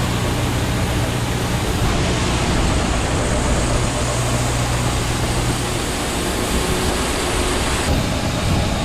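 Combine harvester working wheat: a steady low engine hum under a loud, even rushing noise.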